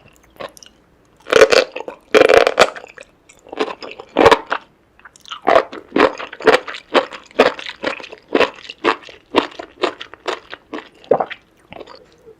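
Close-miked eating of seafood: loud crunching bites in the first couple of seconds, then steady chewing at about two chews a second.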